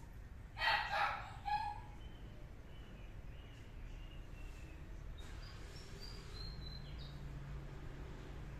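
A kitten meowing: two short meows in quick succession about a second in. Faint high chirping follows later on.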